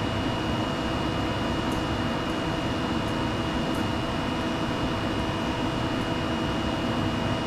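Steady hum and air rush of lab equipment fans and ventilation, with a couple of constant whining tones and a few faint light ticks.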